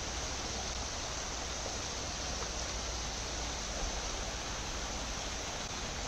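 Shallow stream running over rocks: a steady, even rush of water.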